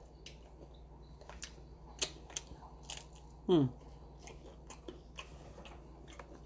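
Close-up chewing of a Jack in the Box taco: wet mouth clicks and scattered soft crunches. About three and a half seconds in comes a short, loud vocal "mm" that falls in pitch.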